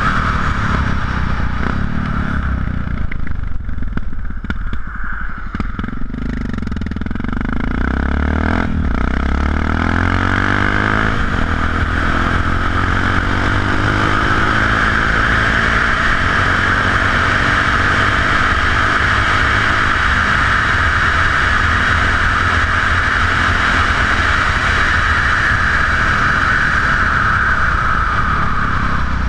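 Yamaha XT660X single-cylinder four-stroke engine running through aftermarket Leo Vince exhausts while riding. The revs drop a few seconds in, then climb in pitch as it picks up speed, before settling into steady cruising under a loud, even wind rush.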